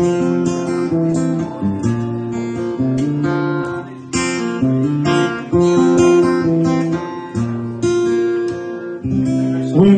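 Acoustic guitar strumming chords in a country song's instrumental passage, with no vocals.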